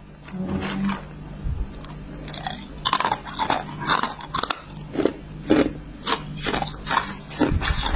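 Thin shards of hard, clear ice being bitten and chewed close to the microphone: a run of sharp crunches, about two a second from about three seconds in, over a low steady hum.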